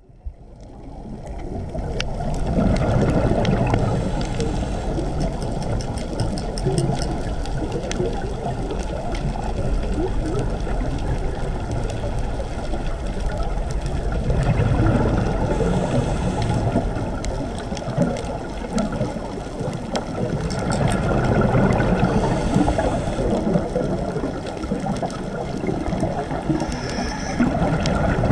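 Scuba diver breathing underwater, heard through a camera's underwater housing: regulator breaths and exhaled bubbles gurgling in slow swells about every six seconds, over a steady dull water noise.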